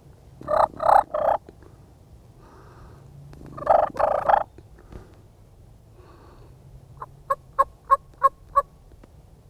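Wild turkey gobbler gobbling close by, twice, about three seconds apart. Near the end comes a quick run of six short, evenly spaced notes.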